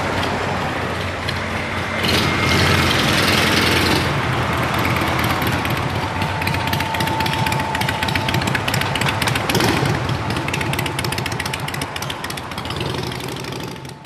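Road traffic crossing an open railway level crossing: cars and a motor scooter passing, the loudest pass about two seconds in, with a rapid clatter running underneath.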